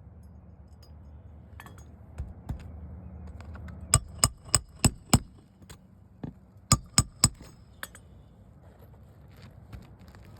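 Roofing nails being driven with sharp, ringing metal-on-metal strikes: five quick blows, about three a second, then after a short pause three more, with a few fainter knocks around them.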